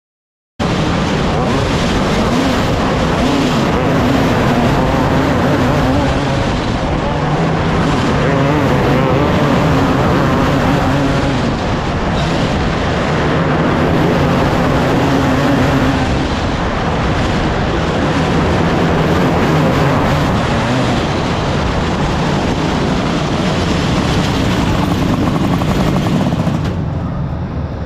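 Race car engines running on track, several at once, their pitch rising and falling as they accelerate and back off. The sound cuts in suddenly about half a second in and eases a little near the end.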